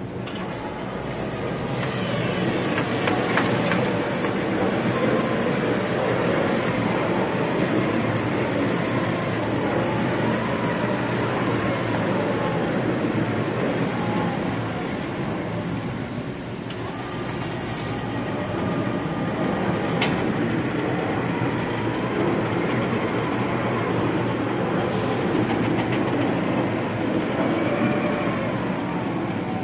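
Robopac Rotoplat 708 turntable stretch wrapper running through a wrap cycle: a steady drive and machine noise as the turntable spins the load and stretch film unwinds from the carriage roll, with a faint whine that rises and falls. It grows louder over the first couple of seconds, then holds even.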